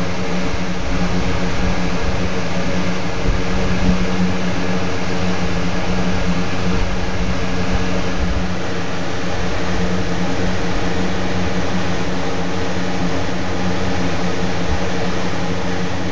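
Steady machine hum: a constant low drone with a few fixed tones over an even hiss, like a running fan or air-conditioning unit, unchanging throughout.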